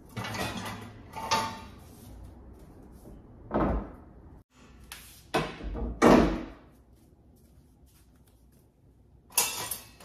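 Kitchen clatter: about six separate knocks and bumps over ten seconds as things are handled at the counter, the loudest about six seconds in and a brief scraping rustle near the end.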